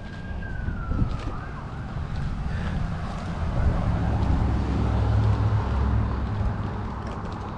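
A distant siren's single wailing tone slides down in pitch and fades about a second and a half in. After it, a low rumble swells for a few seconds and dies away near the end.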